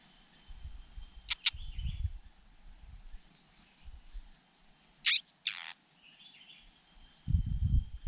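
Small songbird calling: two short sharp chirps about a second in, then two longer downward-slurred calls about five seconds in. Bursts of low rumbling noise come and go underneath and grow loudest near the end.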